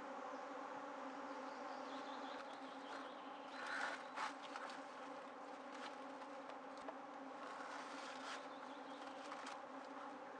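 Flying insect buzzing steadily at one pitch. A few short rustles or knocks come about four seconds in and once more later.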